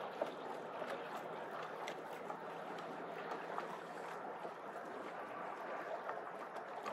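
Water rushing and lapping against the hull of a small boat moving through light chop, a steady wash with small splashes now and then.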